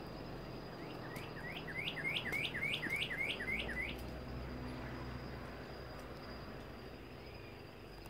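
Northern cardinal singing: a run of about ten quick, rising whistled notes, starting about a second in and lasting about three seconds.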